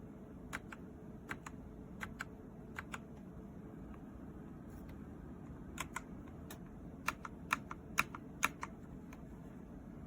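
Keys of a DIERYA x TMKB T68 magnetic-switch keyboard being pressed: scattered single clacks in the first few seconds, then a quicker run of keystrokes after a short pause.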